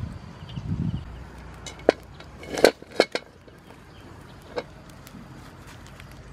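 Water sloshing briefly in a basin as snails are rinsed, then a few sharp clicks and knocks, the loudest a cluster about two and a half to three seconds in, with one more a little later.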